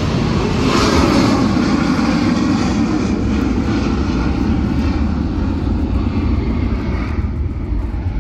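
Loud engine roar passing by, swelling about a second in and fading near the end.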